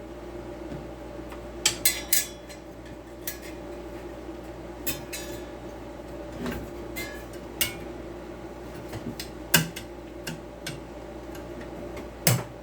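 Scattered metal clinks, clicks and knocks as a blade and its fittings are handled and mounted on a circular saw, with sharper knocks about two, nine and a half and twelve seconds in.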